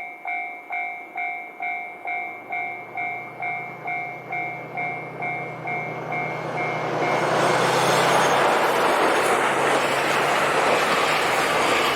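Level-crossing warning bell ringing in a steady two-tone ding about twice a second while a diesel train's engine hum grows as it approaches. From about seven seconds in the train passes through the crossing, its loud running and wheel noise drowning out the bell.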